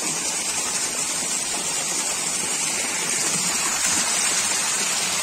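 Stream water flowing with a steady, even rush.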